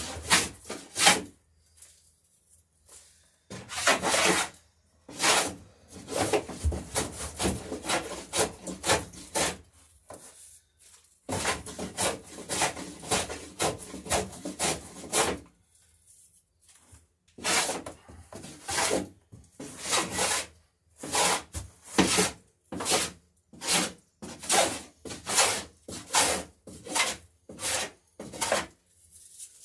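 Hand plane shaving the edge of a wooden garboard plank to a bevel: repeated strokes of the blade cutting wood, in quick runs broken by short pauses, then separate strokes about two a second near the end.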